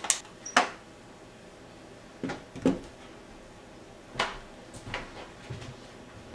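Small wooden frame pieces of a hinged miniature roof knocking and clacking as the roof is unfolded and laid down: about six separate knocks, the two loudest within the first second.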